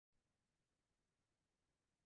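Near silence: no audible sound before the speech begins.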